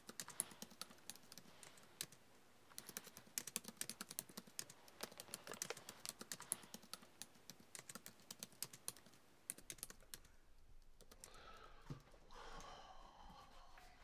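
Typing on a laptop keyboard: quick runs of keystrokes with short pauses, stopping about two-thirds of the way through.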